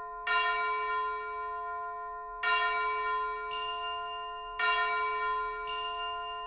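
Background music: a bell-like chord struck three times, about two seconds apart, each ringing out and fading, with a brief high shimmer after the second and third.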